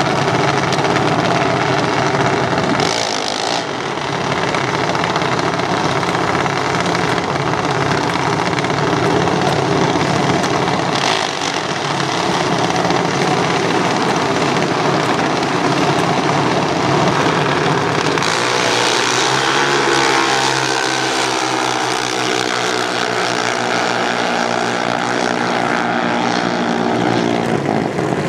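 Junior dragsters' small single-cylinder engines running continuously. In the last third a steady, pitched engine note with many overtones stands out, then ends just before the close.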